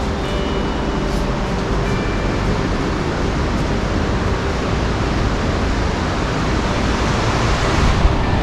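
Steady roar of a fast Himalayan mountain river rushing over a rocky bed, growing a little louder near the end.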